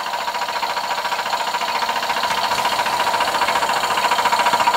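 Scratch-built oscillating-cylinder model steam engine running fast under steam, its exhaust beating up the chimney in a rapid, even chuffing that grows slightly louder. A steady high tone sounds beneath it.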